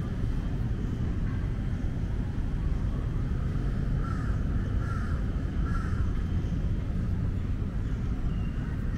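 A crow cawing three times, about a second apart, over a steady low background rumble.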